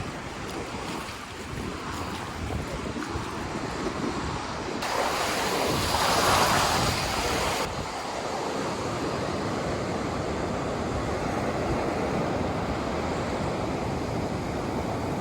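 Rough ocean surf breaking on the beach, with wind buffeting the microphone. About five seconds in, a louder wave crash lasts for a few seconds.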